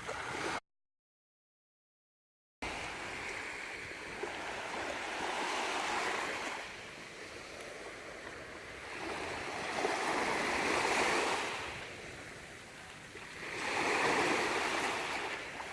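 Sea waves washing in on the shore, swelling and fading about every four seconds. The sound drops out to complete silence for about two seconds shortly after the start.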